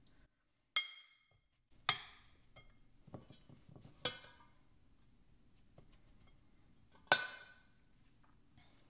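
Stainless steel mixing bowl clinking and ringing as a hand scoops potting mix out of it: four sharp clinks, the loudest about seven seconds in, with faint rustling of soil between.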